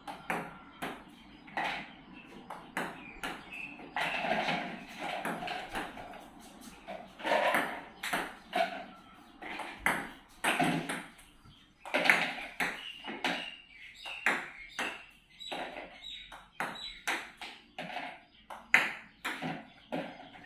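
Table-tennis ball struck by paddles and bouncing on the table: many quick, light, sharp knocks coming in irregular succession.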